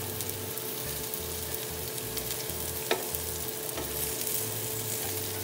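Prawns with garlic butter sizzling steadily in a hot grill pan, with a single sharp click about three seconds in and a faint steady hum underneath.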